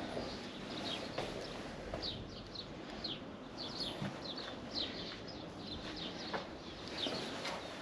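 Small birds chirping, many short high chirps in quick, irregular runs.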